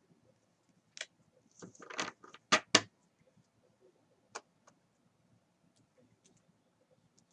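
Trading cards and packs being handled on a table: a few light rustles and clicks, with a pair of sharp snaps about two and a half seconds in and a single tick a little later.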